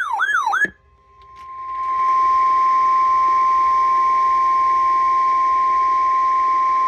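A brief warbling tone cuts off. After a moment of quiet, a single steady 1050 Hz weather-radio warning alarm tone fades in and holds over radio hiss. It is the alert tone that precedes a National Weather Service severe thunderstorm warning.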